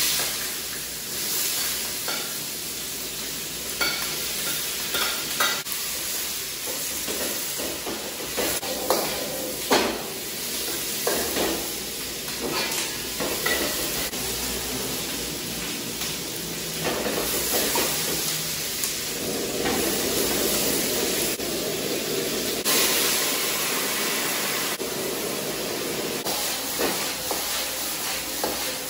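Bell peppers and onion sizzling in hot oil in a wok, stir-fried with a metal ladle that scrapes and clinks against the pan again and again. The sizzle jumps up right at the start as the vegetables go into the oil.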